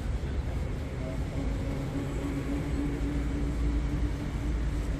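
City street ambience: a steady low rumble of traffic, with a thin steady hum joining from about a second and a half in.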